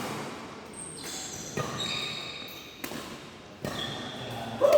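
Badminton rally in a hall: about four sharp racket hits on the shuttlecock, a second or so apart, with short high squeaks of shoes on the court floor.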